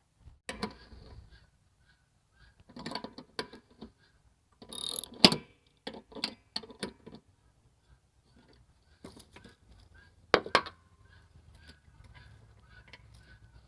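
Metal tools and parts clinking and clattering while a riding mower deck is worked on, in uneven clusters, with a sharp knock about five seconds in and another about ten seconds in.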